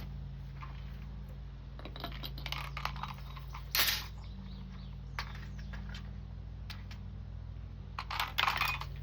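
Scattered clicks, scrapes and small knocks of hands and tools working a metal window screen and its metal spline in the frame, with one sharp click just before the middle and a flurry of louder scrapes near the end, over a steady low hum.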